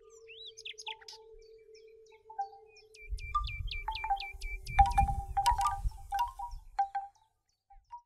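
Bamboo wind chime (Nalulu) swaying, its wooden clapper knocking the hollow bamboo tubes into short ringing notes, sparse at first and coming thick and fast about five seconds in. Birds chirp and call repeatedly over it, with a low rumble under the busiest stretch.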